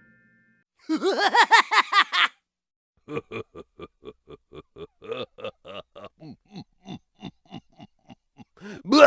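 Cartoon sound effects. About a second in, a fast run of bubbly pitched blips lasts just over a second, each blip bending up and then down in pitch. After a short gap comes a long, evenly spaced string of short pitched blips, about three to four a second.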